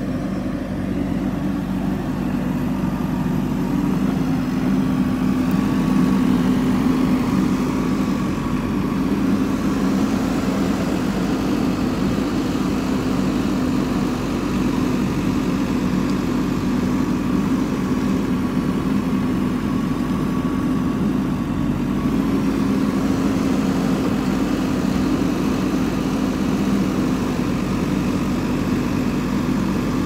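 JCB backhoe loader's diesel engine running steadily at a constant speed.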